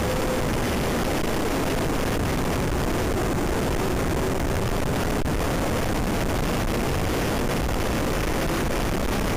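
Steady wind noise over the microphone of a motorcycle riding at speed, with the motorcycle's engine running underneath, its pitch drifting a little with the throttle.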